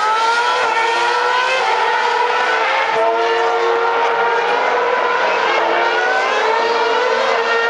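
Formula 1 car's 2.4-litre V8 engine at racing speed: a loud, high-pitched scream whose note climbs again and again through the gearshifts.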